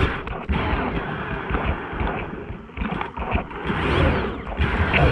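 Wind buffeting the microphone: an irregular low rumble with rustling noise that rises and falls.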